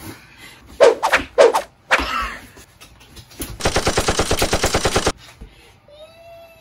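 A rapid, even rattle of sharp pulses, about a dozen a second, lasting about a second and a half, like machine-gun fire. Short voice sounds come before it.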